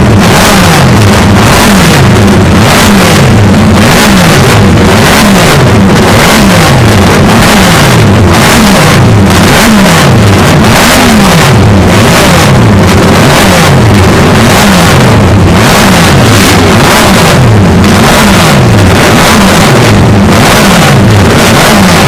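Classic MV Agusta four-stroke multi-cylinder racing engines being blipped, very loud, the revs repeatedly rising and dropping back about once a second with the sweeps overlapping.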